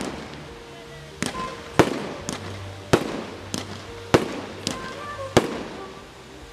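Fireworks display: aerial shells bursting in a rapid series of about eight sharp bangs, roughly one every half second, starting about a second in.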